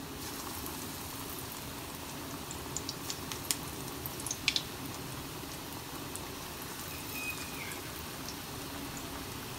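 Gram-flour (besan) batter pakoras deep-frying in hot oil in a wok: a steady sizzle, with a cluster of sharp crackles and pops in the middle as more batter is dropped into the oil.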